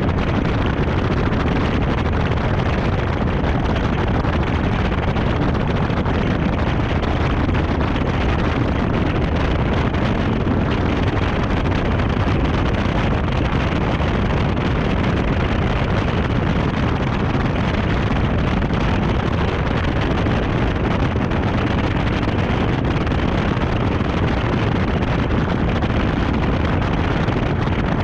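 Steady rush of wind buffeting an action camera mounted low on the side of a car travelling at about 60 to 75 mph, with no distinct engine note standing out.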